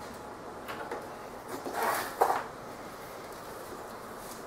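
Light handling knocks and a short scuff as a power cord is worked into a wooden cabinet to plug it in: a faint knock a little under a second in, then a scraping noise and a sharper knock around two seconds in, over a steady low hiss.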